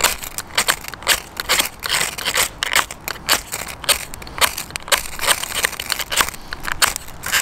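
Ferro rod scraped again and again with a metal striker over a feather stick, short sharp rasping strokes about two a second, throwing sparks onto the wood shavings, which are not catching.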